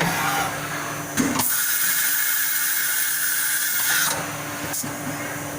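CNC milling machine running while machining aluminium, with a steady hum. About a second and a half in, a loud high hiss cuts in, lasts close to three seconds, then stops sharply.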